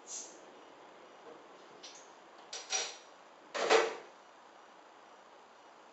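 A capped bottle of homebrew beer being opened by hand: a few short scrapes and clicks at the cap, then, about three and a half seconds in, a short hiss as the cap comes off and the gas escapes.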